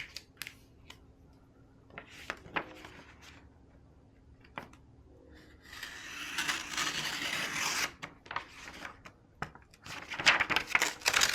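Adhesive vinyl decal being worked onto a pinball cabinet side: backing paper peeling and rustling, with a longer tearing stretch about six seconds in and louder bursts near the end, among scattered small clicks.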